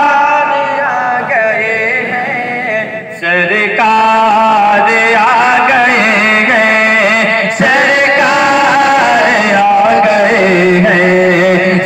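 Man singing an Urdu Sufi devotional song into a microphone, amplified through a PA, in long, wavering, ornamented held notes; a short break about three seconds in.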